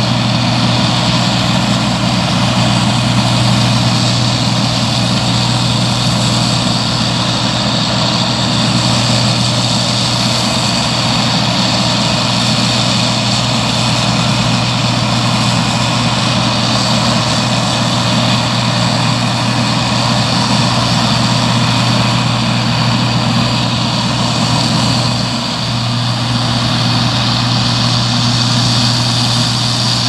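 Case IH 5088 combine harvester running steadily under load while harvesting barley: an even engine and threshing drone with a steady low hum, dipping briefly a few seconds before the end.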